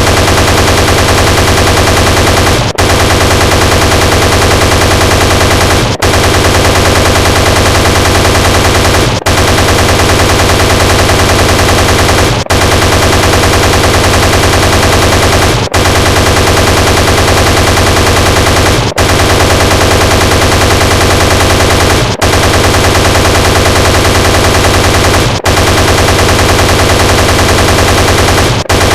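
Sound effect of an attack helicopter's chain gun firing in a rapid continuous stream. The fire is loud and comes as a loop of about three seconds that repeats with a brief break between repeats.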